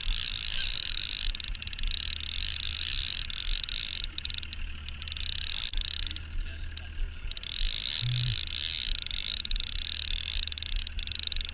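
Line-counter trolling reel being cranked, its gears whirring in steady runs that stop briefly twice around the middle.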